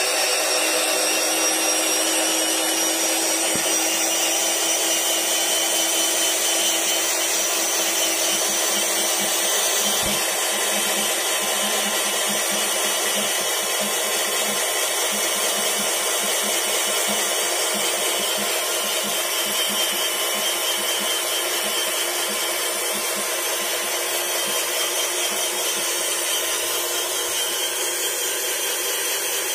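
Electric motor of a model Hino 500 dump truck's tipper lift whining steadily as it slowly raises the dump bed.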